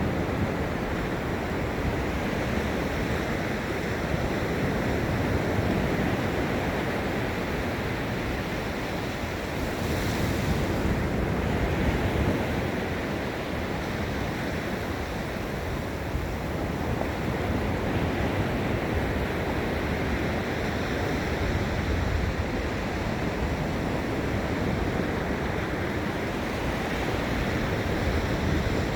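Gulf of Mexico surf breaking and washing on a sandy beach as a steady, slowly swelling rush, with wind rumbling on the microphone. A brighter hiss comes about ten seconds in.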